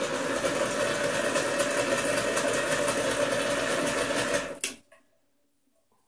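Clatronic ES-2243 steam espresso maker on its hot-water setting: pressurised hot water and steam hiss and sputter out of the outlet into an enamel jug. The flow cuts off suddenly with a click near the end as the knob is turned to off.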